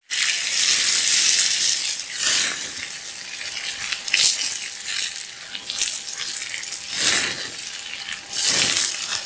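Meat and red onion sizzling in a cast-iron skillet over a campfire, stirred with a wooden spatula; the hiss swells several times as the food is turned.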